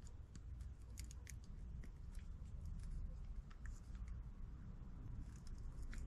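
Wire stripper snipping and clicking as the end of a wire is cut and its insulation stripped: a scatter of small sharp clicks over a faint low rumble.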